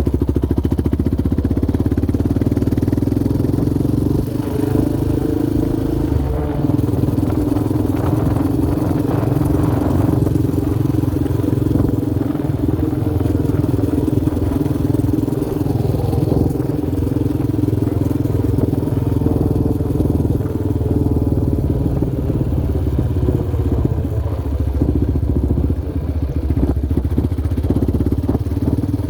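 Yamaha Raptor 700R sport quad's single-cylinder four-stroke engine running while being ridden, its pitch shifting a little with the throttle.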